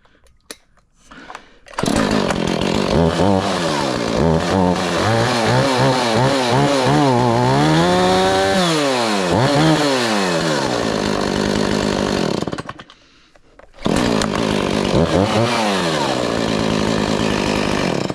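Small chainsaw engine firing up suddenly on a cold start, then revved up and down several times. It drops out for about a second near the end and comes back running, with one more rev.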